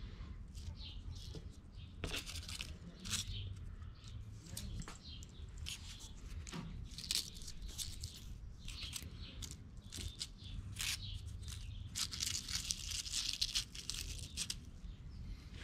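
Dried rose petals crackling and tearing as gloved fingers crumble them in a small plastic cup. A run of irregular, dry crinkles, thickest near the end.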